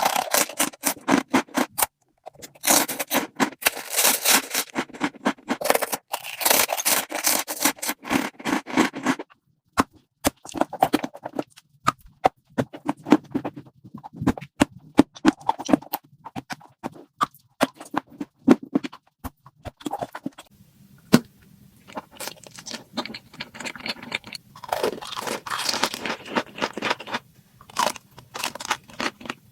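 Close-miked eating: crunchy bites and chewing in bursts of a few seconds, with short pauses between them.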